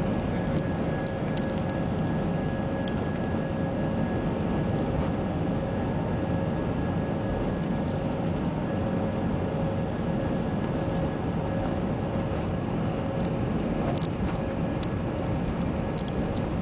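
Cabin noise of an Airbus A320 taxiing: a steady rumble from the engines and airframe with a steady whine running through it.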